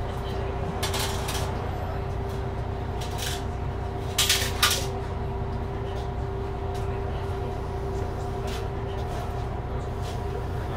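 City bus interior with the engine running: a steady low rumble and hum. A few sharp clicks come through it, and a brief double clatter about four seconds in is the loudest sound.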